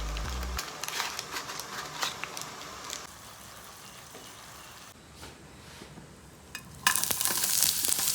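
Food frying in hot oil, crackling and spitting with stirring for the first few seconds, then settling to a quieter sizzle. About seven seconds in a loud sizzle suddenly flares up.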